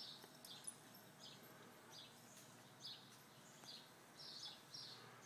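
Near silence outdoors, with faint, short high chirps of small birds repeating irregularly every second or so.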